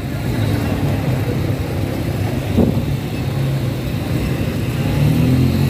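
Quad bike (ATV) engines running close by, a steady low drone that swells a little near the end, with one brief louder noise about halfway through.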